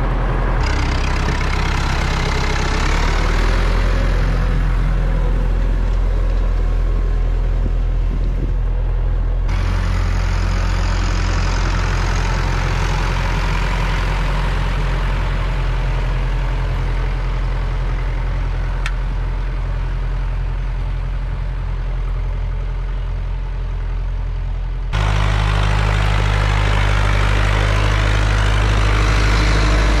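Tractor engine running steadily and loud, its tone shifting abruptly about a second in, about nine seconds in and again about twenty-five seconds in.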